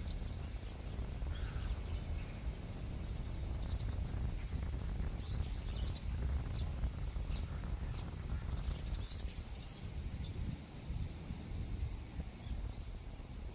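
Small birds chirping, with a rapid trill about nine seconds in, over a steady low outdoor rumble.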